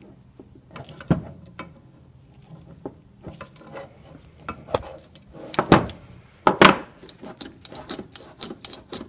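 Light metal clicks and knocks from lineman pliers and wire-rope cable being handled against a cast-aluminium snake-tong handle on a wooden bench, with a few louder knocks and a quick run of small clicks near the end.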